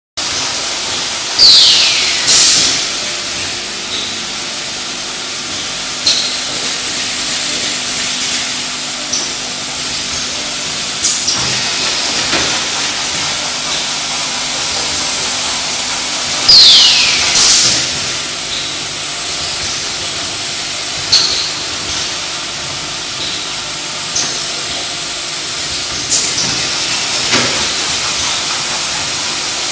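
Automatic 16-nozzle bottle filling machine running: a steady hiss of compressed air, with a pair of loud hissing air blasts about every fifteen seconds and single sharp clicks in between as the pneumatic parts move.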